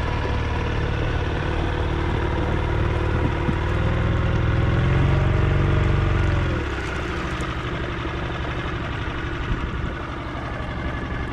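Small outboard motor pushing an inflatable dinghy, running steadily. It gets louder and higher about four seconds in, then drops back down about two and a half seconds later.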